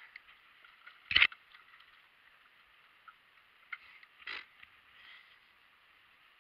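Knocks in an aluminum rowboat: a sharp, loud knock about a second in and a softer thump about three seconds later, over a faint steady hiss.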